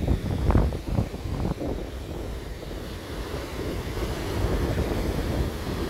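Wind buffeting the microphone in uneven low gusts, over the wash of surf on the beach.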